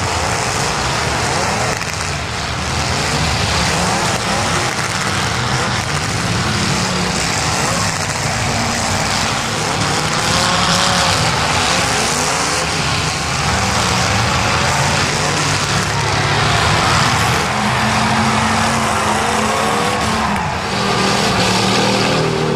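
Several demolition derby cars' engines revving hard and racing, their pitch repeatedly rising and falling over a dense, steady din.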